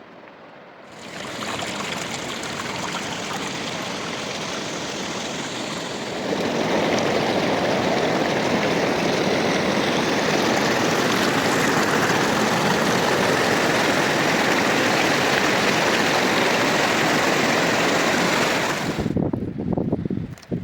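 River water rushing in a steady noisy flow, which starts about a second in, gets louder about six seconds in and cuts off shortly before the end.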